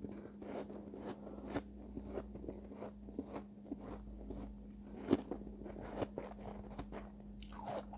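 Refrozen shave ice pieces crunched and chewed in the mouth, close to the microphone: irregular sharp crunches several times a second, loudest about five seconds in, over a steady low hum.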